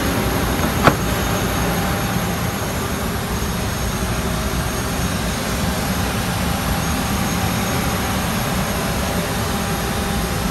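Steady rushing drone of an airliner cabin's background noise in the galley, with one sharp click about a second in.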